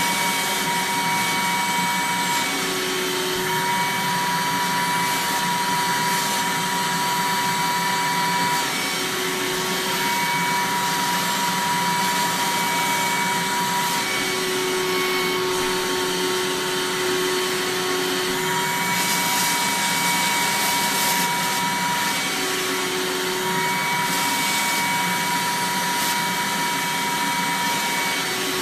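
Eureka Mighty Mite 3112A canister vacuum cleaner running steadily, its airflow whine breaking off and shifting pitch every few seconds, with a brief hissier stretch about two-thirds of the way in.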